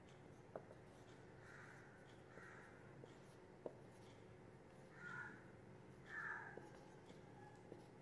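Faint scratching of a marker writing on a whiteboard, with a few light clicks and several short, harsh bursts partway through.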